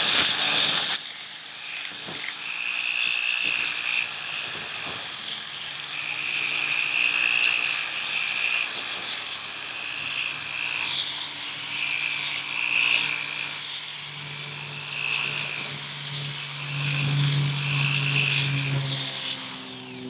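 Makita finger sander (a narrow-belt electric sander) running below full speed, its belt grinding across carved wood. The motor's whine wavers in pitch and the sound swells and dips as the belt is pressed on and eased off the wood.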